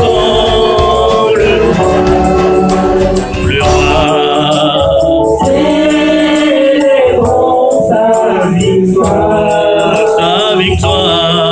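A woman singing a gospel worship song into a microphone, amplified through the PA, with backing singers and a rattling percussion beat.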